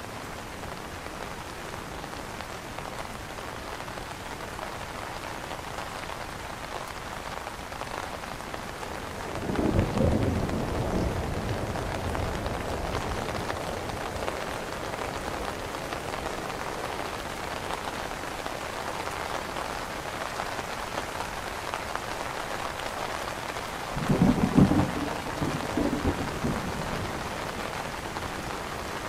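Steady rain falling on an umbrella canopy, with two low rolls of thunder, one about a third of the way in and a louder one late on.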